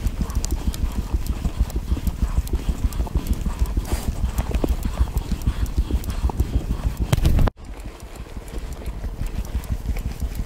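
Mountain bike with a front suspension fork clattering over a rough dirt trail at speed: rapid irregular rattling and knocking of the bike over a steady low rumble of tyres and wind on the handlebar camera's microphone. The sound cuts out sharply about seven and a half seconds in, then comes back quieter.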